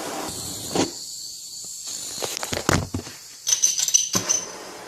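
Hand-held blow torch hissing unevenly, the hiss dropping out and coming back, with a few sharp clicks and knocks. The flame is misbehaving, which the user puts down to a bad nozzle or his own technique.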